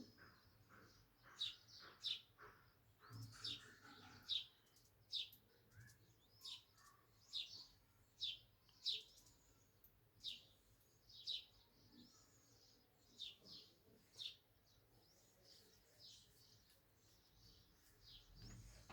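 Small cage birds chirping: short high chirps, about one or two a second, thinning out after about fourteen seconds.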